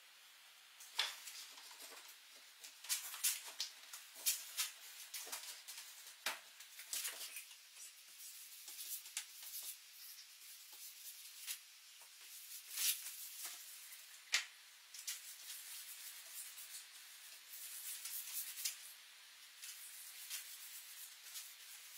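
Bristle paintbrush scrubbing stain onto a rough-sawn wooden frame: irregular scratchy strokes with sharp clicks and taps scattered through.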